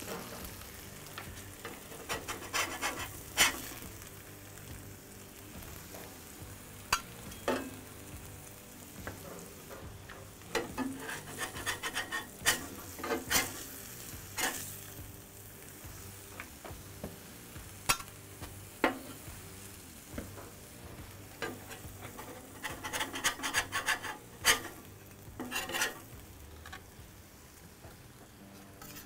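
Meat, cheese and tortillas sizzling steadily on a hot steel flat-top griddle, with a metal spatula scraping and tapping across the griddle surface in several bursts of quick strokes.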